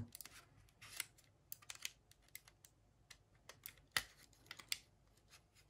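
Faint, irregular plastic clicks and taps of a Glorious Model O Wireless mouse shell being worked apart by hand, with a sharper click about four seconds in.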